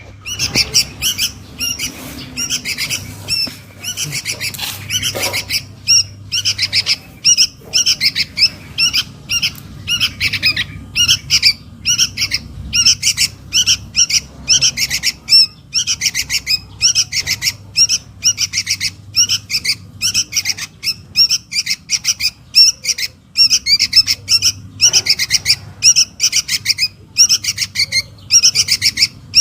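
Young sooty-headed bulbul (kutilang) calling for its parent: short, harsh chirping calls repeated several times a second in near-unbroken runs.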